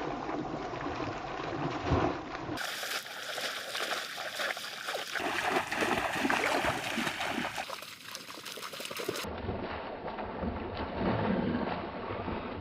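Shallow water sloshing and splashing in short irregular bursts, as people wade and work in it by hand, with abrupt changes where clips are cut together.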